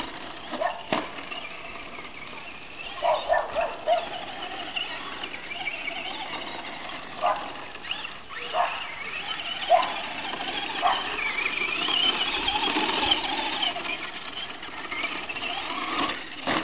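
Brushless electric motors of Traxxas Slash short-course RC trucks running on a dirt track, their whine rising and falling in pitch with the throttle. Short sharp sounds come here and there, four of them in quick succession about three seconds in.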